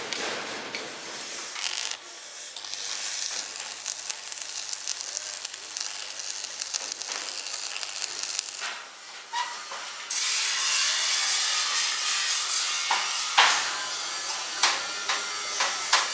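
Stick (arc) welding on a steel chassis frame: the arc's steady crackling hiss, louder from about ten seconds in. A few sharp clicks come near the end.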